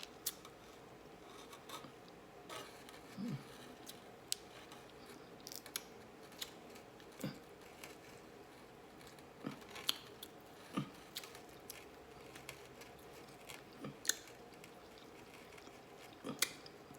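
Close-miked eating sounds of a person working through crab claw meat: irregular clicks, lip smacks and chewing.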